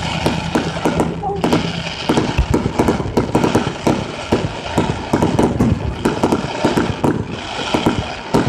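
Fireworks display: a dense, irregular run of sharp bangs and crackles, several a second, with crowd voices underneath.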